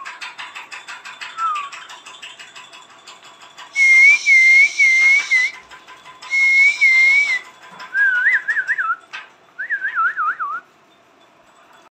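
Warbling whistled notes in several short phrases with gaps between, the loudest about four seconds in, ending in two quick falling trills. A fast run of faint clicks sounds under the first few seconds.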